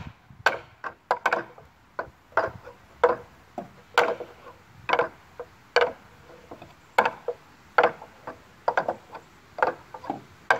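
Hand rings knocking against the wooden pegs of a rig obstacle as a climber swings along, moving one ring to the next peg at a time: sharp wooden knocks about once a second, some in quick pairs.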